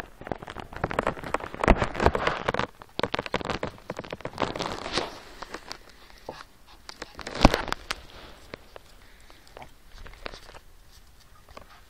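Two small dogs, a Yorkshire Terrier and a Kleinspitz x Jack Russell cross, play-fighting: a rapid scuffle of paws, claws and bodies, full of quick clicks and rustles, with two sharper thumps, one about two seconds in and one in the middle, before it settles down near the end.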